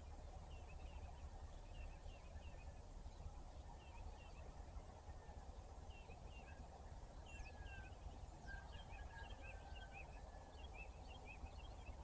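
Faint, busy chorus of small birds: many quick chirps with a few longer whistled notes, growing denser in the second half, over a steady low background rumble.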